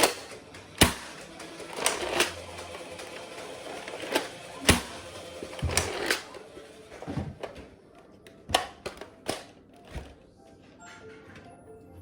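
Toy Nerf blaster being reloaded and fired: a string of irregular sharp plastic clacks and knocks, loudest about a second in and near the middle, thinning out toward the end.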